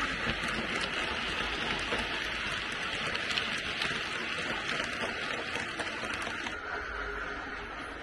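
Model railway coaches and vans rolling along the track: a steady rattling hiss with fine clicks from the wheels, dropping away about six and a half seconds in as the last vehicle goes by.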